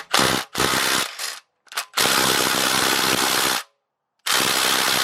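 Cordless power tool spinning out oil pan bolts in repeated bursts: two short runs, a brief blip, then a longer run of about a second and a half and another near the end.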